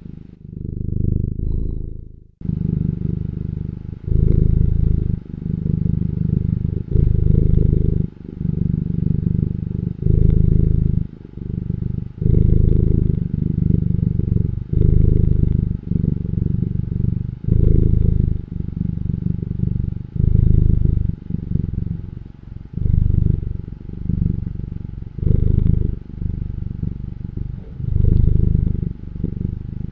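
Purring: a low, continuous rumble that swells and breaks in regular pulses about every second and a half, as with each breath in and out.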